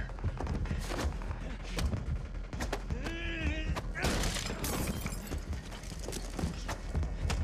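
Hand-to-hand fight sound effects: a rapid run of punches, kicks and body thumps, with a strained cry about three seconds in and a loud burst of crashing noise a moment later.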